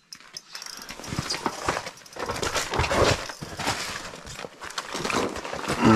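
Irregular rustles and knocks of an ice angler's clothing and gear as he moves and reaches down to the hole to handle the line while fighting a fish.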